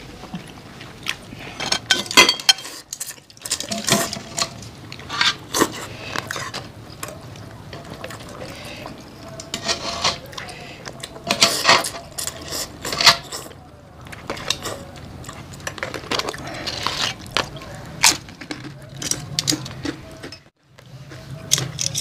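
Close-miked eating sounds: slurping curry noodle soup and chewing, with utensils and tongs clinking against bowls and a metal wok in irregular sharp clicks and smacks.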